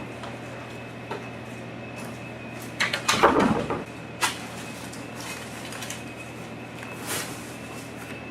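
Handling noises: a few light knocks, then a louder clattering scrape lasting about a second, about three seconds in, followed by a sharp knock and a fainter one later, over a steady faint room hum.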